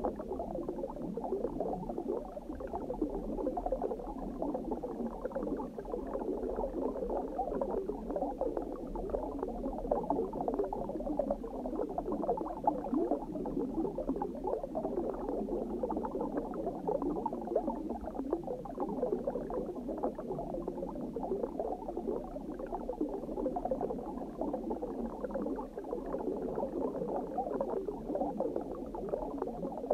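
Underwater ambience: a steady stream of water bubbling and gurgling over a low rumble.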